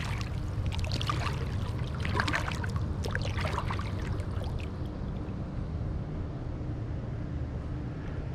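Shallow pond water splashing and sloshing around a hand as a largemouth bass is released, the splashing dying away about halfway through. A steady low wind rumble on the microphone lies underneath.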